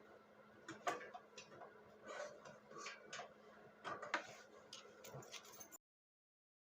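Irregular light clicks, taps and short scrapes of small parts and tools being handled during hands-on repair work. The sound cuts off abruptly near the end.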